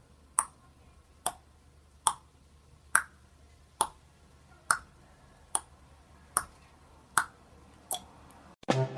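Ten sharp clicks at a steady pace, a little more than one a second, over a faint low hum; they stop shortly before the end.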